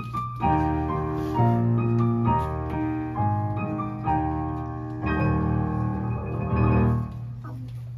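Keyboard playing a short passage of held chords as live background music, changing chord about once a second and stopping about seven seconds in.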